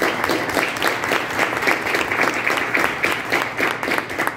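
Audience applauding: a dense, even patter of many hands clapping.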